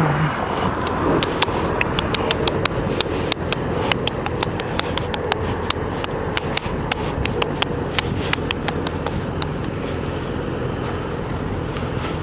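Steady road traffic noise with a run of sharp, irregular clicks, several a second, from about a second and a half in until about nine seconds in.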